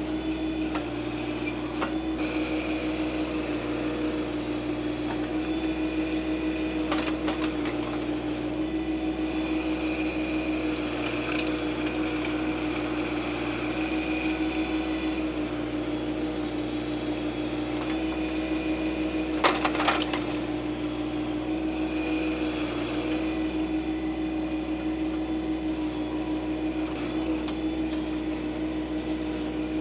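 John Deere 2025R compact tractor's three-cylinder diesel running steadily while working the backhoe, with a few knocks about seven seconds in and a louder clank about twenty seconds in.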